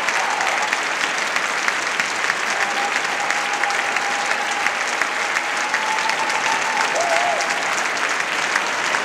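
Audience applauding: steady, dense clapping from a large seated crowd.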